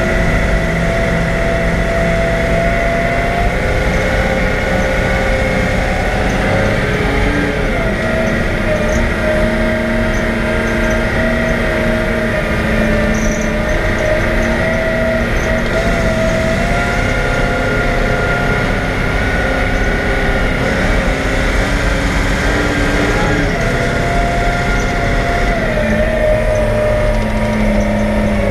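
Caterpillar 769C haul truck's V8 diesel engine running as the truck drives, heard loud inside its cab. The engine's pitch steps up and down a few times.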